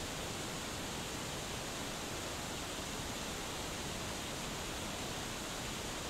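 Waterfall cascading down a rock face: a steady, even rush of falling water with no change in level.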